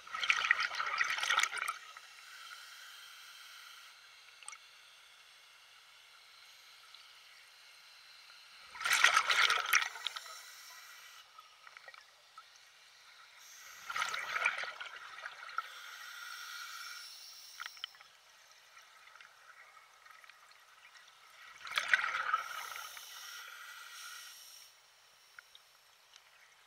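Water splashing in four separate surges several seconds apart, each dying away over a second or two.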